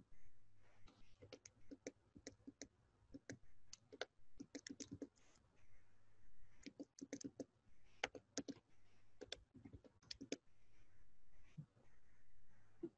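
Faint typing on a computer keyboard: irregular clusters of key clicks with short pauses between them.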